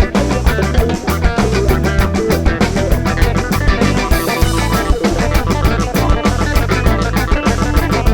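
Live rock band playing an instrumental passage, with electric guitars over bass and a drum kit keeping a steady beat.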